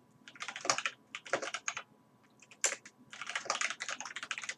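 Typing on a computer keyboard: quick runs of keystroke clicks, with a pause of about a second near the middle.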